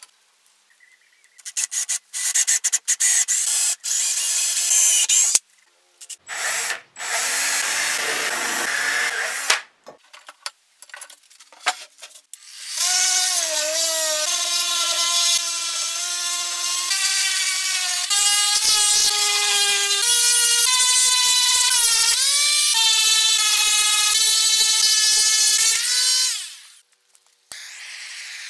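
Electric random orbital sander running on wood for about fourteen seconds, its motor pitch stepping up and down as it is pressed and moved. Before it come short bursts of power-tool noise, and at the end the quieter even hiss of a gas blowtorch.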